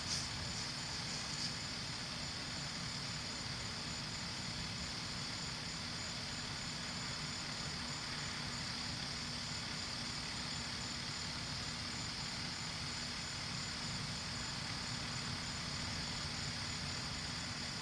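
Steady night-time insect chorus, crickets trilling in a constant high drone with a faint regular pulse, over a low steady hum. Two small knocks in the first second and a half.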